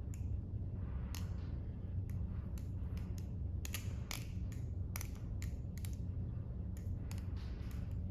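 Stainless steel balisong (butterfly knife) being flipped: irregular sharp metallic clicks and clacks as the handles swing around the blade and knock against it.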